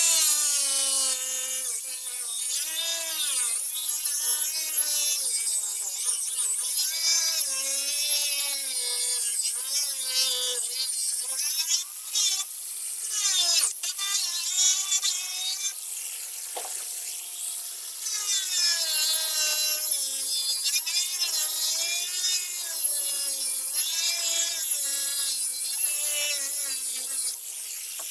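Handheld power tool cutting. Its motor pitch dips and recovers over and over as the load changes, with a brief let-up about 12 to 14 seconds in.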